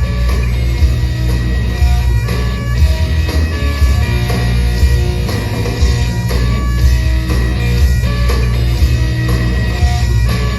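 Loud, steady rock music with guitar and a heavy bass line.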